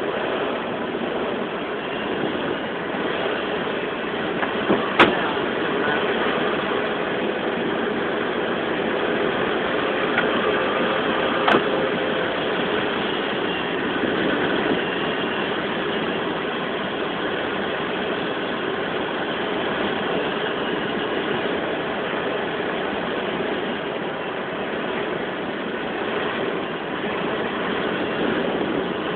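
Steady rush of air streaming past an ASK-13 glider's cockpit in unpowered gliding flight, with two sharp clicks about six seconds apart.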